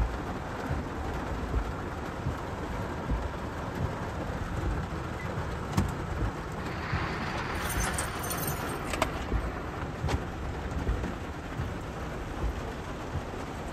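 Heavy rain beating on a car's roof and windshield, heard from inside the moving car over a steady low road rumble. A louder hiss swells for a couple of seconds about seven seconds in, with a few sharp clicks.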